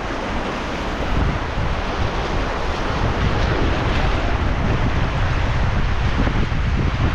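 Rushing river water around a raft on the Beas, a steady hiss of noise, with wind buffeting the microphone in low rumbling gusts.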